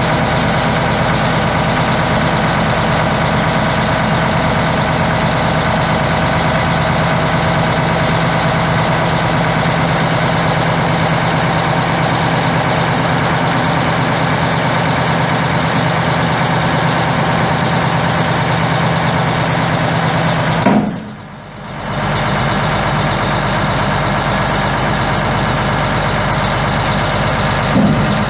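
The six-cylinder turbo diesel (Mack EM6-285) of a 1985 Mack DM600 dump truck, idling steadily. The sound dips briefly about three-quarters of the way through.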